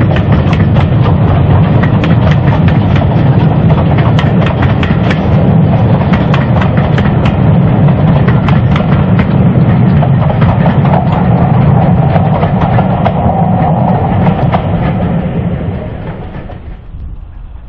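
BR Standard Class 4 2-6-4 tank steam locomotive 80072 and its coaches passing, the wheels clicking over the rail joints. The sound fades away near the end as the train moves off.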